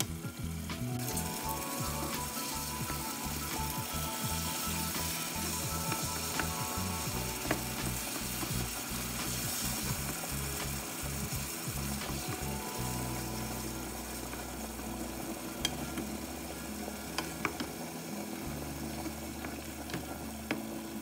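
Tomatoes and garlic cloves sizzling in hot oil in a pan while being stirred with a wooden spoon, the sizzle growing louder about a second in. A few light clicks of the spoon against the pan.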